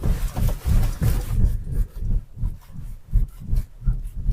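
Hongqi HS3 SUV driving over a twisted-road (axle-articulation) test section: a low, uneven rumble with irregular thumps as the suspension works. No squeaks or rattles stand out, which the driver takes as a sign that the body and parts are well made.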